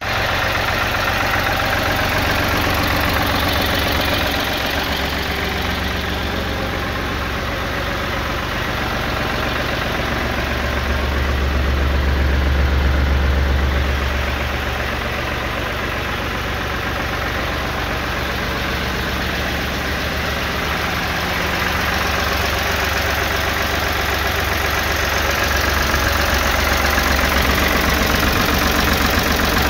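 Ford 333 tractor's engine idling steadily, its low hum louder for a few seconds about midway.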